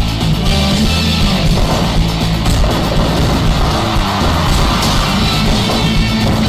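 Loud music playing steadily, with a heavy low end.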